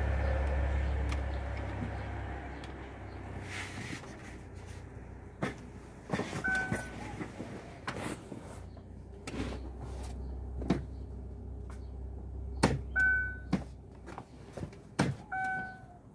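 Clicks and knocks from a Chevrolet's automatic gear lever and console trim being worked by hand, as someone tries to free a broken, jammed gear lever. A short electronic beep sounds three times, and a low hum fades away over the first few seconds.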